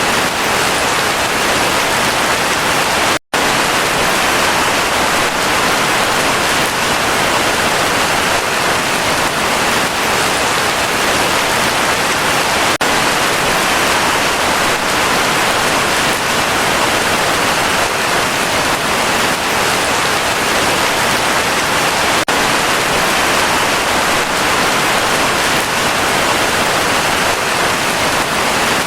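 Heavy rain falling steadily, a dense even hiss. It cuts out for a split second about three seconds in.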